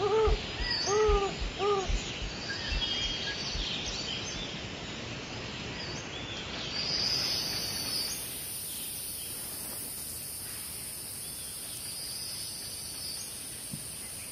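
Woodland ambience: a bird gives a short series of arched calls and other birds chirp, with a few low thumps in the first two seconds. About seven seconds in, a steady high insect hiss sets in over the background noise.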